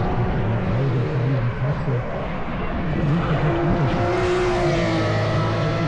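GT race cars' engines revving up and dropping off again and again as they brake and accelerate through a run of corners. The engine note gets louder and brighter about four seconds in as a car comes close.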